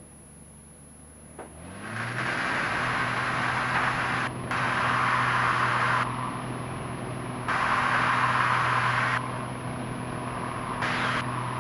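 Pitts biplane's engine brought up from low power to full power about a second and a half in, then running steadily, with a loud rushing hiss that swells and drops every second or two as the plane turns in an inverted flat spin.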